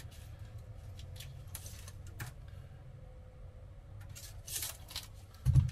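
Hand-handling noises of measuring at a cabinet: a few light clicks and short rustles, then one dull thump near the end, the loudest sound.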